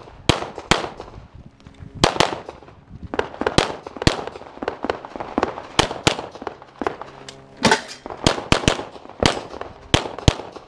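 Semi-automatic pistol firing a string of shots, many in quick pairs, with short pauses between groups.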